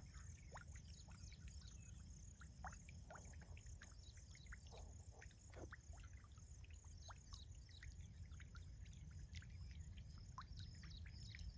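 Faint outdoor ambience: scattered short, falling chirps of small birds over a steady high hiss and a low rumble.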